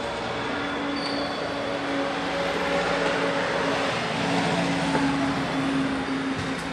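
Road traffic: a motor vehicle going past, a steady engine drone that grows louder through the middle and eases off near the end.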